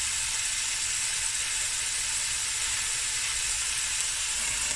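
Beef cubes searing in hot oil in a pot: a steady sizzle.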